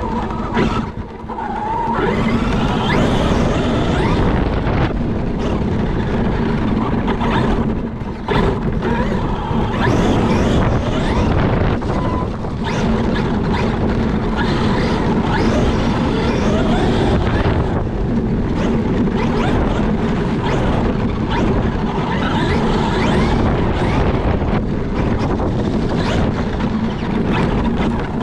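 Traxxas X-Maxx monster truck on 8S LiPo power, heard from on board while driving over rough grass. Its brushless motor and drivetrain run with a steady low hum under wind noise, with frequent knocks as the chassis jolts over bumps.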